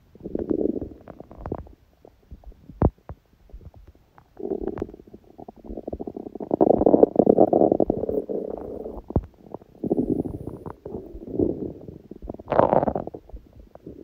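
An empty stomach growling and gurgling from hunger, in several irregular bouts with small pops and clicks between them. The longest and loudest bout runs through the middle for about four seconds, and a brighter, higher gurgle comes near the end.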